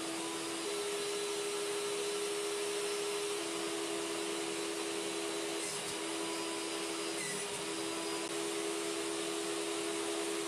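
Table saw running at full speed with a steady hum and whine while a wooden slat is fed along the fence to be trimmed a few millimetres shorter.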